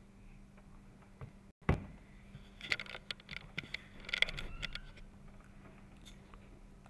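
Quiet room tone with a faint steady hum and a brief dropout, then scattered faint clicks and knocks.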